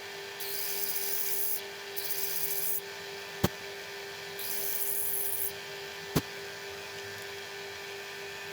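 Drilling machine running with a steady hum while a drill bit is fed into metal in three short cuts, about a second each, to drill a blind hole that stops short of breaking through. Two sharp clicks come between the cuts.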